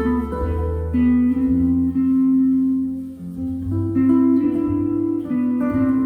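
Donner DTC-100S Telecaster-style electric guitar playing sustained notes and chords of a slow ballad, with a brief drop in level about three seconds in.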